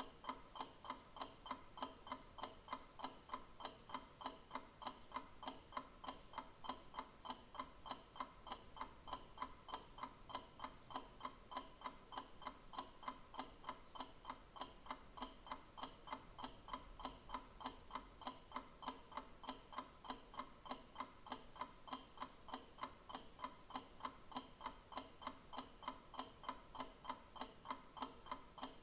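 Clock ticking with steady, evenly spaced ticks, a few each second.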